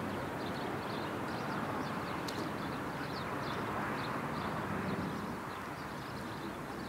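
Steady open-air city ambience: a constant hum of distant traffic with small birds chirping faintly, and a single sharp click about two seconds in.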